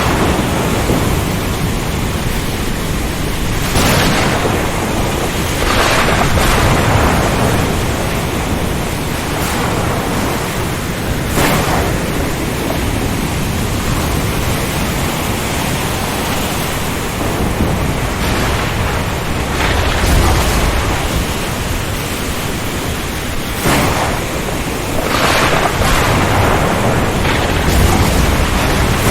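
Storm at sea: a steady roar of wind and rain over the ocean, with surges of wind or crashing waves every few seconds and low rumbles of thunder about two-thirds of the way in and again near the end.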